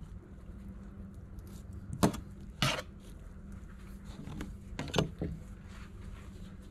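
Fillet knife and gloved hands handling a flounder and its fillets on a cutting board: a sharp knock about two seconds in, a short scrape just after, and another knock near five seconds.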